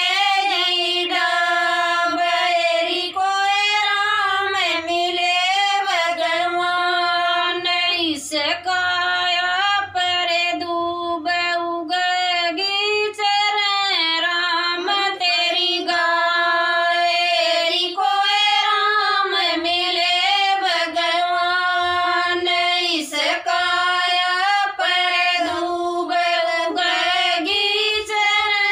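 Women singing a Haryanvi devotional bhajan together in unison without instruments, in long held, gliding notes with short pauses for breath.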